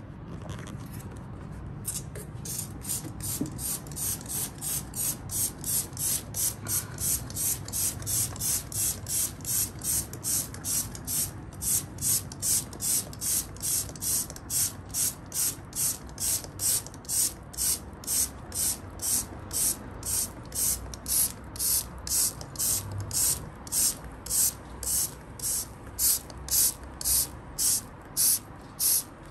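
Trigger spray bottle of Denkmit degreaser being squeezed over and over, about two squirts a second, starting about two seconds in.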